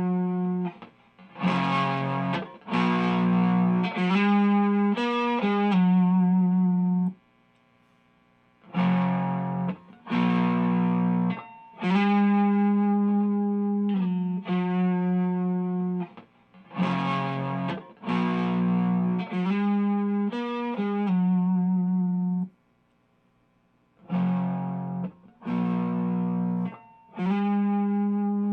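Fender Stratocaster on its neck single-coil pickup, played through an Xotic SL Drive overdrive pedal into an Orange Micro Dark amp: overdriven chords and riffs in short phrases, with two breaks of about a second and a half.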